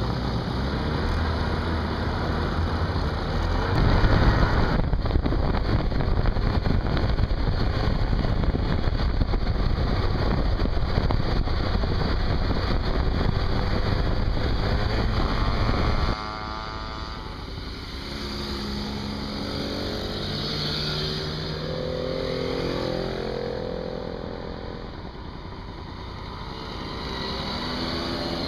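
For about the first 16 seconds, loud wind buffeting and engine noise recorded on the move among riding mopeds. About 16 seconds in it cuts sharply to quieter sound: small moped engines approaching and passing, their pitch rising and falling as they go by.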